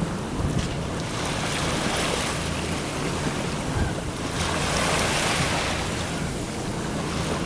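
Water rushing past a sailboat's hull and wind buffeting the microphone, swelling louder about two seconds and again about five seconds in, over a low steady hum.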